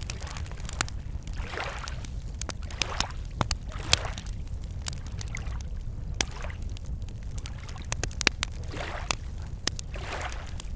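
Wood campfire crackling with scattered sharp pops, over small lake waves lapping at the shore in soft swells every second or two, with a steady low rumble underneath.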